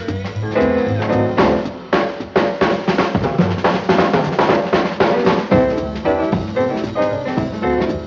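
Jazz quartet recording with the drum kit to the fore: a dense run of drum and cymbal strokes starts about a second and a half in and lasts some four seconds, over bass notes and held melody notes.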